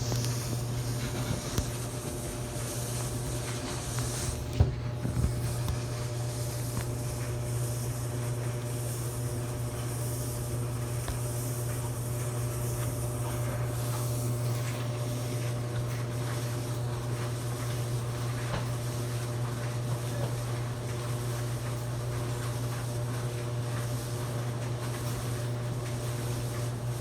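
Maytag dryer running with a steady motor hum. A few knocks come about a second and a half in and again around five seconds.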